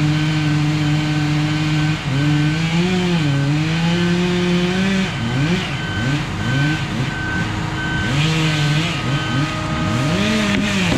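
Stihl two-stroke chainsaw at high revs, held steady through a cut for about five seconds, then throttled up and down in a string of quick revs before settling and rising again near the end.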